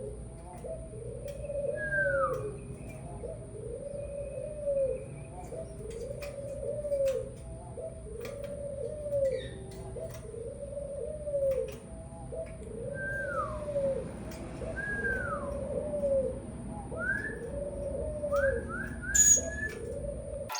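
A dove cooing: the same low, arched coo repeated about every two seconds. A few higher falling whistled notes from another bird come in, the last ones near the end quick and close together.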